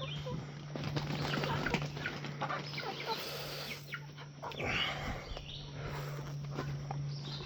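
Chickens clucking and scratching around as they are fed, with rustling and small clicks, over a steady low hum.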